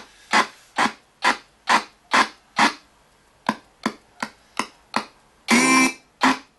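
RTC ghost box sweeping through radio stations: short chopped snippets of radio audio, about two to three a second, with near-quiet gaps between them. A longer half-second snippet with a held pitch comes about five and a half seconds in.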